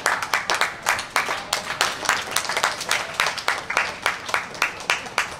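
A few people clapping: separate, uneven claps, several a second.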